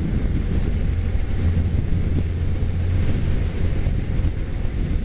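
Motorcycle riding at freeway speed: wind rush over the microphone mixed with engine and road noise, a steady low rumble with a hiss on top.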